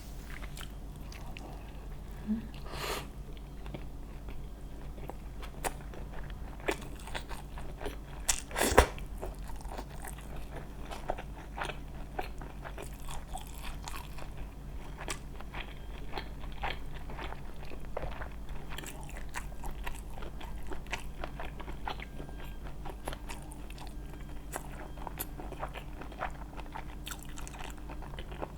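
Close-miked chewing with many crisp, crunchy bites and small clicks, one louder crunch about nine seconds in.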